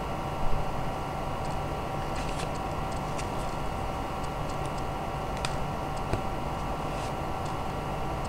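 Scattered light clicks and taps from a deck of oracle cards being handled, over a steady electrical hum.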